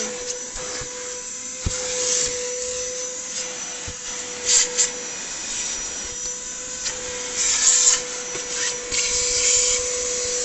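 Vacuum cleaner running steadily, its hose nozzle worked over a car's floor carpet, with several short, louder hissing rushes as the nozzle is drawn across the carpet.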